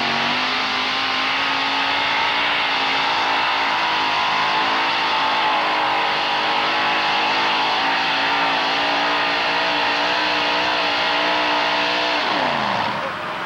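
Modified pickup pulling truck's engine running flat out while dragging a weight-transfer sled, its pitch climbing at the start and then holding high with a slight waver. Near the end the revs drop away as the pull ends.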